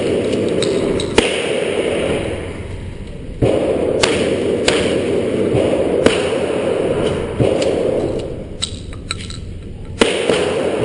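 Gunshots fired inside an enclosed indoor shooting range: about eight sharp, irregularly spaced shots, each followed by a reverberant wash of sound.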